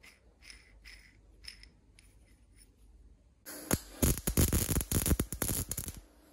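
Faint small metal clicks and scraping as a steel nut is handled on a threaded rod. About three and a half seconds in, a MIG welder starts its loud, steady crackle, tack-welding the steel piece held in the vise, and it stops shortly before the end.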